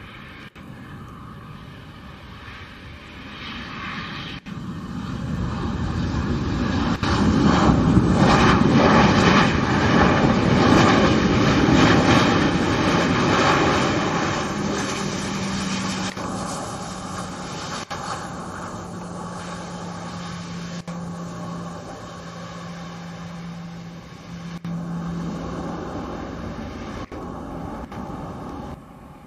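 Bombardier Global 6000 business jet's twin Rolls-Royce BR710 turbofans on the landing roll-out. The jet noise swells to a loud peak as the aircraft rolls past, then eases off. A steady low hum in the second half drops slightly in pitch, and the sound cuts away near the end.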